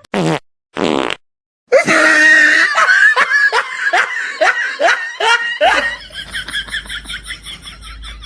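Two short bursts of noise, then a long run of laughter in repeated bursts that quickens and fades toward the end.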